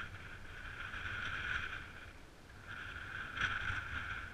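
Mountain bike rolling over stony ground. Its hissing, buzzing running noise rises and falls and dips about two seconds in, over wind rumbling on the microphone.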